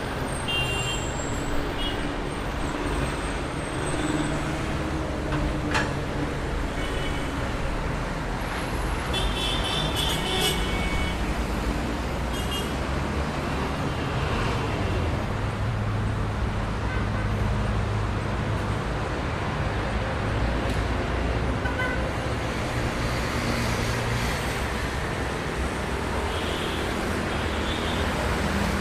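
Traffic jam: a steady rumble of idling and creeping vehicle engines, with car horns tooting now and then, most busily about a third of the way in.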